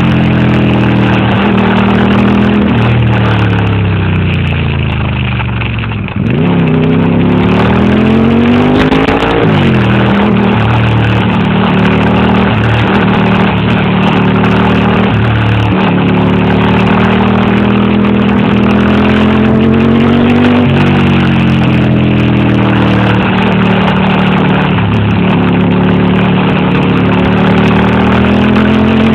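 Ducati motorcycle engine running at speed, its pitch rising as it revs up and falling back again and again with throttle changes and gear shifts. About six seconds in it slows and quietens briefly, then picks up sharply as the throttle opens again.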